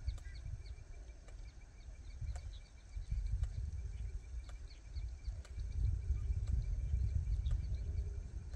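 Open-field ambience: a steady low rumble that grows louder about three seconds in, under faint steady high-pitched tones, scattered short chirps and a few sharp clicks.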